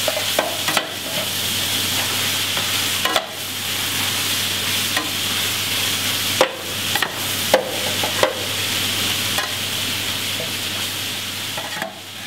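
Chicken and spices sizzling and frying in the hot pan of a FRIMA VarioCookingCenter, the spices being seared. A metal spatula stirs them, scraping and knocking against the pan a handful of times.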